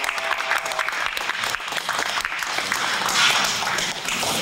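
A small crew of people clapping and applauding to mark the wrap of a shoot, a little louder about three seconds in.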